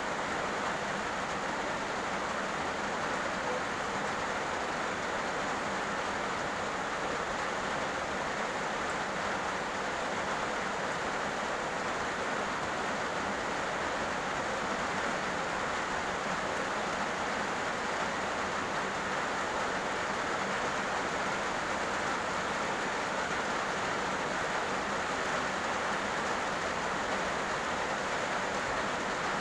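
Heavy rain falling steadily on a road, an even, unbroken hiss.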